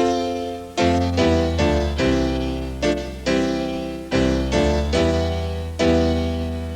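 Piano music: chords struck one after another, about one or two a second, each ringing and fading away over a sustained low bass.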